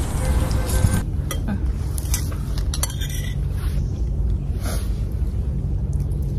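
Cutlery clinking and scraping against a plate as people eat, a few scattered light clicks over a steady low rumble.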